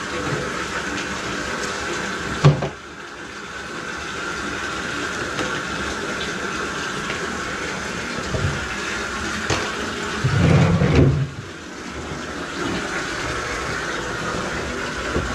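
Electric drum drain auger running, its steel cable turning in a drain line plugged with lint and grease, giving a steady wet, rushing churn over a constant motor whine. There is a sharp knock about two and a half seconds in, and a heavier rumbling knock shortly after ten seconds.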